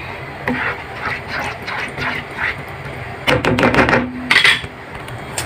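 A cooking utensil stirring thick, creamy sauce in a pan, scraping and tapping against the pan, with a quick run of sharp clicks a little past halfway.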